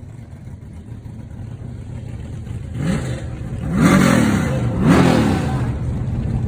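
An engine idling and then revved three times in quick succession, about a second apart, each rev rising and falling back.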